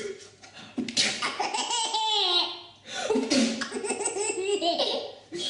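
A baby laughing hard in two long bouts, one starting about a second in and the other about three seconds in, amused by someone's sneezing.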